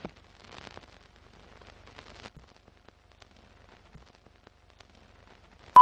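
Old-film countdown leader effect: faint crackle and scattered clicks like a worn film running through a projector, ending in one short, sharp beep.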